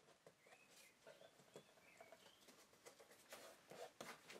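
Near silence with faint rustling and light taps of paper tape being handled and pressed onto the corners of a wooden box, a little louder near the end.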